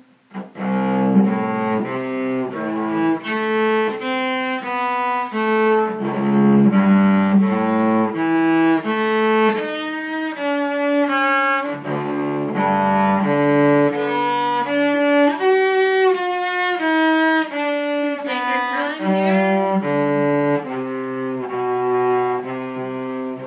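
Solo cello played with the bow: a steady run of separate notes through a concerto passage, after a brief break at the very start.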